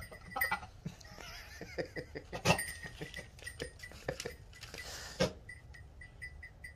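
Fainting-goat buck in rut making guttural mouth noises, breathing through his mouth and spitting while he licks a doe. It comes as a string of short sputters, the loudest about two and a half seconds in, with a breathy rush and another sharp sputter near five seconds.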